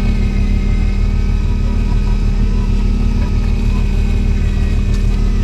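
Boat engine running at a constant low drone.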